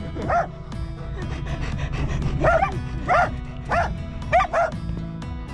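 A dog barking, about six short barks with gaps between them, over background music.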